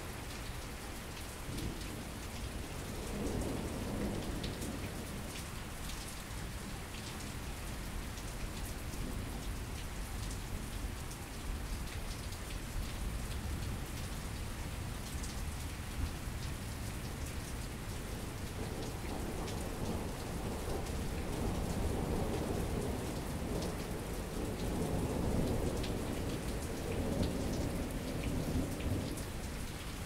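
Steady rain of a thunderstorm, a continuous hiss with many small drop ticks. Thunder rumbles roll in briefly a few seconds in, then again at length through the second half, swelling and fading.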